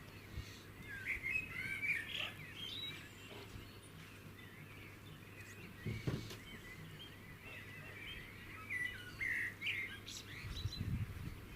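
Songbirds singing in quick warbling, chirping phrases, in two bouts: one in the first few seconds and another toward the end. A single knock sounds about halfway through, and there is a short low rumble near the end.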